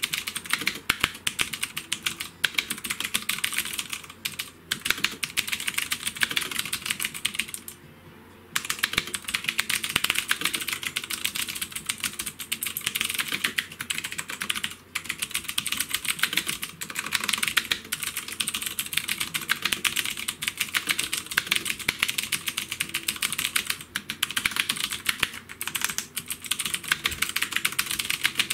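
Fast typing on a Havit HV-KB366L mechanical gaming keyboard: a dense, uneven stream of key clicks, with a short pause about eight seconds in.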